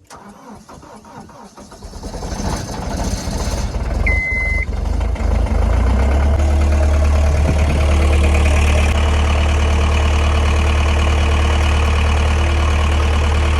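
John Deere skid steer's diesel engine cranking, catching and rising to a steady idle. A short single beep sounds about four seconds in.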